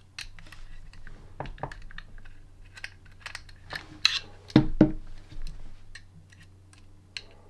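Light clicks and taps of a metal Allen key working the small screws out of a plastic 3D-printer print head, with the housing being turned and handled; the loudest knocks come about four and a half seconds in.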